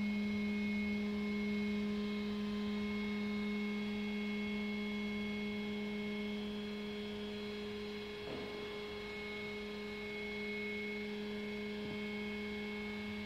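Hydraulic power unit of a wooden crane running with a steady, unchanging hum while the hydraulic rams raise the booms under a test load.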